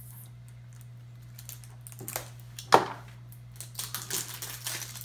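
Plastic toy packaging being handled and opened: a few light clicks, a sharp snap a little before the middle, then a run of rustling and crinkling, over a steady low hum.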